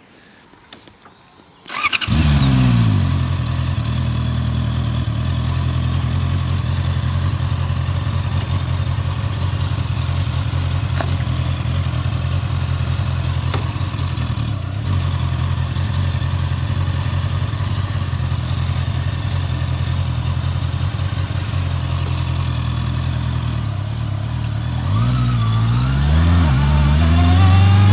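A Honda CBR sport motorcycle's engine is started about two seconds in, flares briefly and settles to a steady idle. Near the end it revs up and down and pulls away.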